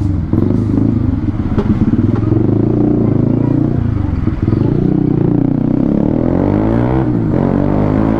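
Motorcycle engine running under way, its pitch shifting as it is ridden. About seven seconds in, the revs dip briefly and then climb again, as at a gear change followed by acceleration.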